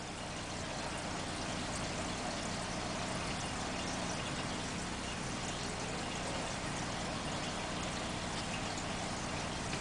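Aquarium filter running: a steady rush of trickling water over a low hum, rising slightly in level in the first couple of seconds and then holding steady.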